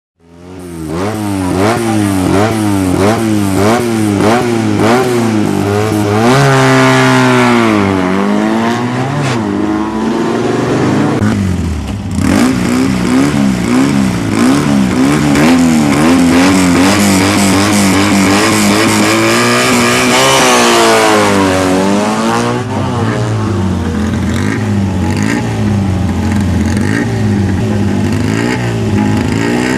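Fiat 500 engine being revved again and again, its pitch rising and falling in quick short blips at first, then in longer, wider sweeps, with smaller blips near the end.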